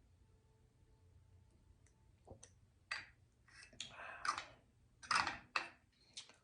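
Handling noises at a table: after a couple of quiet seconds, a run of sharp clicks and short crackling rustles, loudest about four to five seconds in.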